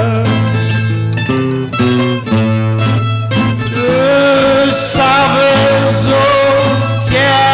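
Cantoria ao desafio accompaniment: an acoustic guitar and pear-shaped Portuguese guitars play a plucked tune. About four seconds in, a man's voice enters over them, singing one long, wavering note.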